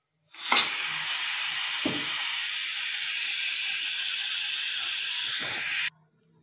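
Pressure cooker letting off steam through its bare vent nozzle with the weight lifted off: a loud, steady hiss that starts suddenly and cuts off sharply near the end. It is the release of pressure at the end of cooking, before the lid is opened.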